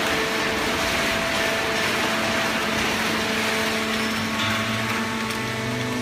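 Automatic horizontal hydraulic waste-paper baler running, a steady machine noise with several constant hums from its motor and hydraulic pump. A lower hum joins about four seconds in.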